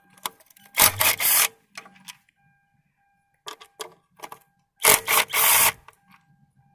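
Cordless Matco driver with a 10 mm socket spinning out ignition coil bolts: two short whirring bursts, about a second in and about five seconds in, with small clicks of the tool and parts between them.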